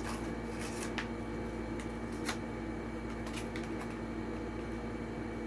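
Scattered light clicks and crackles of a toy car's plastic blister pack and cardboard backing being handled and pried open, over a steady low hum.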